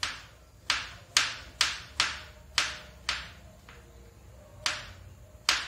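Kitchen knife slicing a banana on a white plastic cutting board, the blade knocking sharply on the board with each cut: about eight knocks at uneven gaps of around half a second.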